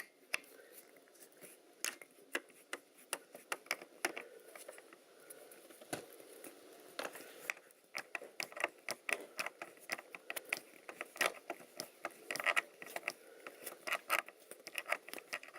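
A hex driver turning small bolts out of a radio-controlled car's chassis: irregular small clicks and scrapes of the tool in the bolt heads, some coming in quick clusters.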